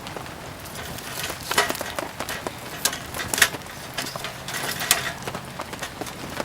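Wood fire crackling, with irregular sharp pops and snaps, over a steady hiss of rain.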